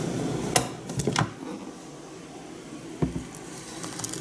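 Sharp plastic clicks and knocks from an electric kettle being switched off and lifted from its base. Hot water starts pouring from it into a plastic pitcher near the end.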